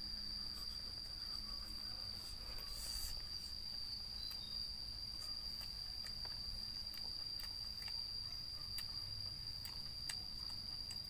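A steady, high-pitched insect trill held without a break, with scattered faint clicks over it.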